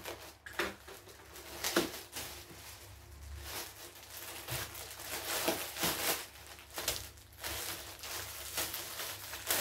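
Plastic courier mailer bag being cut and torn open, then the crinkle of a plastic-wrapped item being pulled out: irregular rustling and crackling with small sharp clicks.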